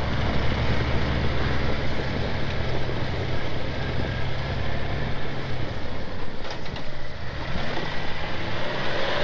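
A vehicle engine running steadily under load with the noise of travel over snow; the steady low hum breaks up about five and a half seconds in.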